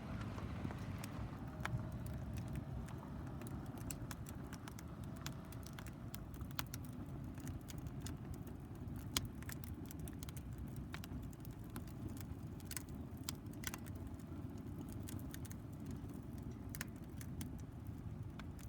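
Wood fire burning in a home-made tower-type fire stand, crackling with irregular sharp pops over a low steady rumble.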